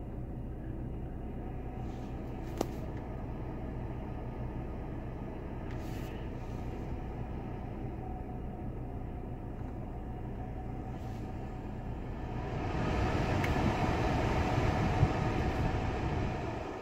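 Steady hum of the 2015 Chevy Colorado in the cab, engine idling with the A/C blower on low, and a single light click about two and a half seconds in. About twelve seconds in, the rush of air from the vents swells up and holds, then drops away near the end. This is the blower's slow response to its setting, which the owner calls a delayed reaction.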